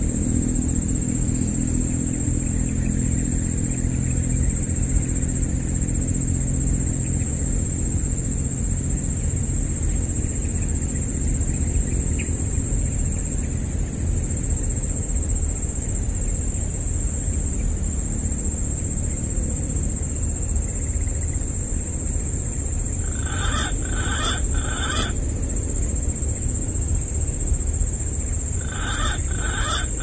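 Outdoor ambience with a steady high insect-like drone over a low rumble. About three-quarters of the way in comes a short call of three quick notes, and the same three-note call sounds again near the end.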